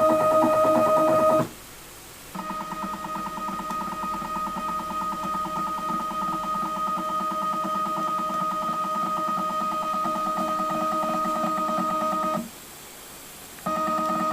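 CNC machine's stepper motors whining at a steady pitch as an axis is jogged at constant speed. The whine stops about a second and a half in and again near the end, each time for about a second.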